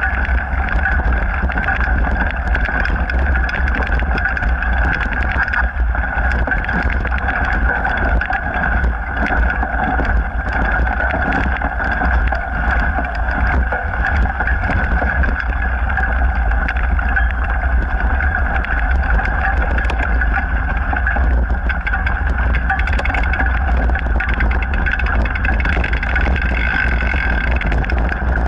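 Mountain bike riding steadily along a hard-packed dirt trail, heard through the rider's action camera: continuous low wind rumble on the microphone and tyre noise, with many small rattles and clicks from the bike over the bumps.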